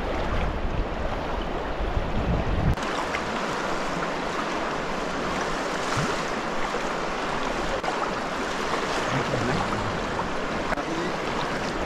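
Fast-flowing river water rushing steadily along the shore, with wind buffeting the microphone for the first few seconds until it drops away suddenly.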